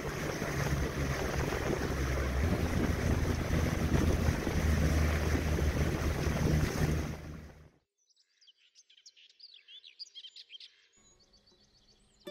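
Small motorboat under way: a steady low engine drone mixed with rushing wind and water. It cuts off abruptly about eight seconds in, and a few seconds of quieter bird chirping follow.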